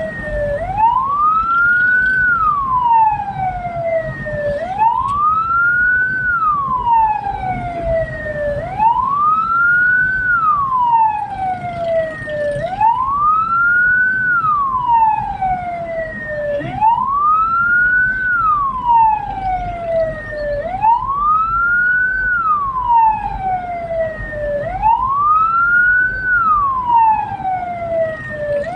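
Hearse siren wailing, rising quickly and falling slowly about every four seconds, over the low rumble of the vehicle on the road.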